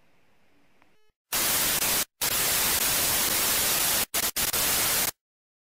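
TV-static white-noise sound effect from a glitch transition, coming in loudly about a second in, breaking off briefly a few times and then cutting off suddenly.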